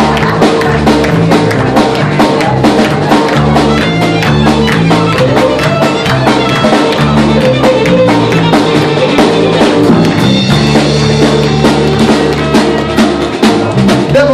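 Live band playing a fast country fiddle tune: violin over electric bass guitar and a drum kit, with steady, dense drum hits.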